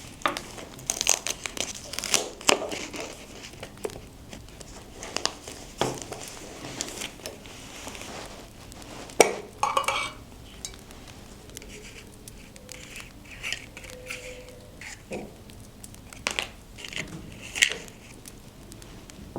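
Scrapbooking at a desk: paper crinkling and rustling, mixed with sharp taps and small clicks and clinks of craft tools and objects being handled. The taps come irregularly, the loudest about nine seconds in.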